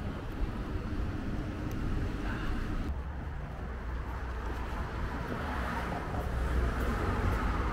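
Street traffic ambience: a steady wash of passing cars with a low rumble, changing abruptly about three seconds in and growing louder near the end.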